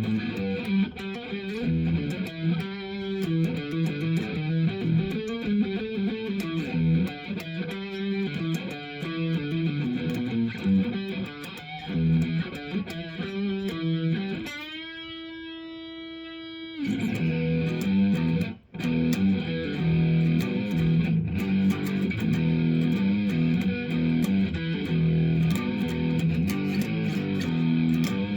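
2005 Epiphone Les Paul electric guitar played through a Marshall Code 25 amp: riffs and runs of notes, a single note held for about two seconds midway, a brief break, then steady repeated riffing.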